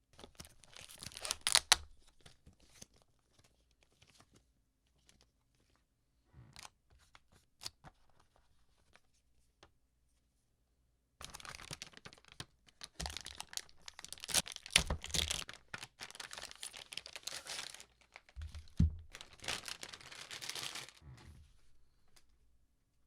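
Packaging being torn open and crinkled: a short burst of tearing and rustling at the start, then a long stretch of tearing and crinkling with scattered clicks and a couple of soft thumps, after a quiet spell.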